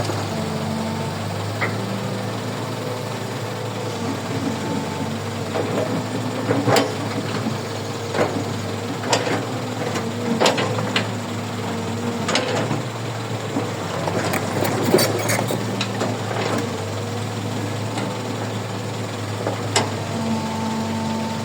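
Heavy diesel engine of a Kobelco 135 excavator running steadily, with sharp clanks and knocks from the digging work at irregular intervals, a cluster of them about two-thirds of the way through.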